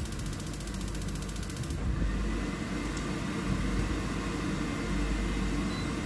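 Rapid, even, high-pitched ticking of an RV tankless water heater's ignition needle sparking, stopping abruptly about a second and a half in, over the steady hum of the heater's combustion fan. The test points to a faulty air pressure switch behind the heater's E5 fault.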